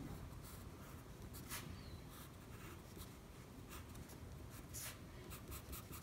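Graphite pencil scratching on paper as a sketch is drawn: faint, scattered strokes, then a quick run of short strokes near the end as small corners are hatched in.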